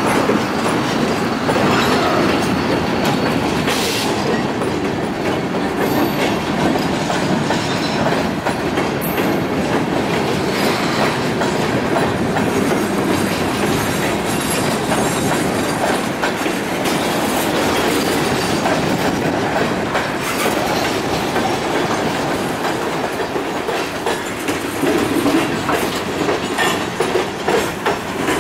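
Freight cars of a passing freight train rolling by at close range: a steady rumble of steel wheels on rail with a constant clickety-clack over the rail joints. A faint high wheel squeal fades out about four seconds in.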